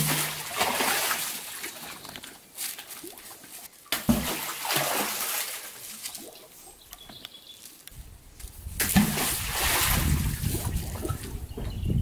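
A fishing magnet splashing into the water at the bottom of a stone well, three times about four seconds apart, each splash trailing off into trickling and sloshing water; the last one runs on longer.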